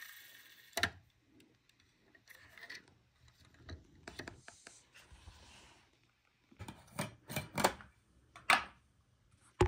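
Sparse light clicks and knocks from hands handling a small die-cast toy truck and glass marbles, with a cluster of sharp glassy clinks about seven to nine seconds in as marbles are picked from a jar.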